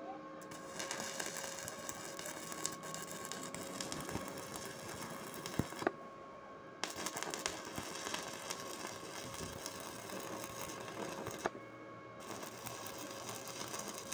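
Stick-welding arc from a CLIF ARC200 DC inverter arc welder running at about 150 amps, crackling and sizzling steadily over a faint steady hum. The crackle stops briefly twice, about six and twelve seconds in, and then picks up again.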